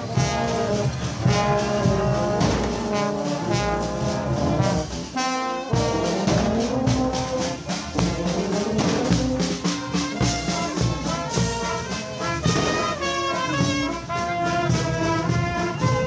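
Brass band playing a tune on the march, its brass carrying the held melody notes over sharp percussive strikes.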